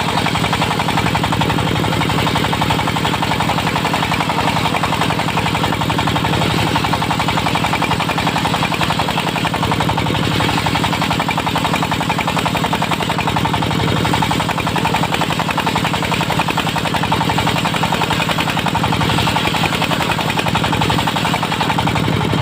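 Diesel engine of a mobile circular sawmill running steadily at a constant speed, with a fast, even knocking beat.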